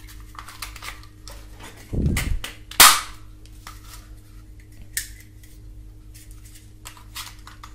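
Plastic toy pistol being handled: light plastic clicks, a dull thump about two seconds in, then one sharp crack like a toy-gun shot.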